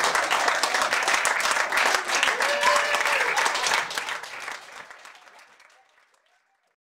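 Audience applauding, with a few voices calling out, fading away over the last couple of seconds.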